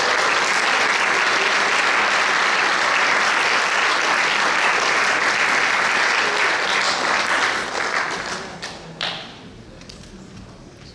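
Theatre audience applauding, a dense clapping that dies away about eight seconds in, with a few last claps.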